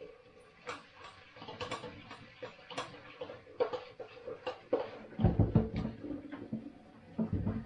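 A cooking pot being washed in a stainless-steel kitchen sink: scattered clinks and knocks of the pot against the sink and utensils, with a louder, duller stretch of handling a little after five seconds in.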